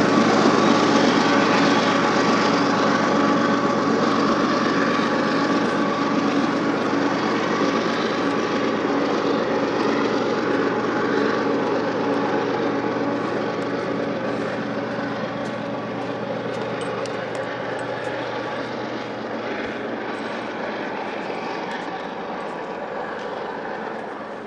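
Long freight train with GE diesel-electric locomotives running past, a steady engine drone over the noise of the train, fading evenly as it draws away.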